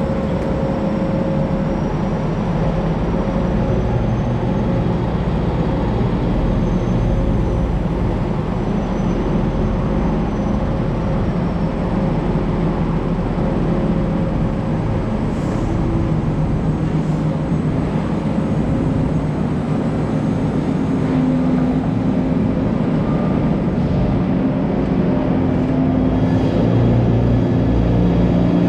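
Semi truck's diesel engine running steadily as the loaded flatbed rig creeps along, the low engine note growing a little louder near the end.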